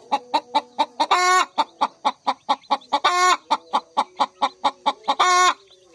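Chickens calling: a fast, even run of short clucking pulses, about seven a second, broken three times by a louder, harsher drawn-out call, about two seconds apart.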